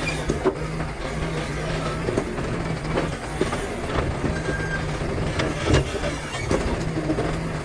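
Excavator's diesel engine running steadily under load, with irregular knocks and clanks of rock being pushed and packed by the steel bucket.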